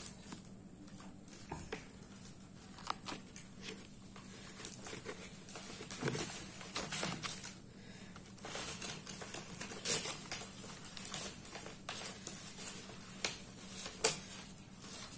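Hands crumbling and pulling dried cow dung off a cloth-bag-wrapped bundle, with irregular crackling and rustling of the stiff cloth and a few sharper clicks of dung pieces breaking off.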